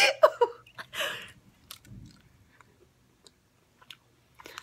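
A laugh at the start, then quiet chewing of jelly beans with a few small mouth clicks.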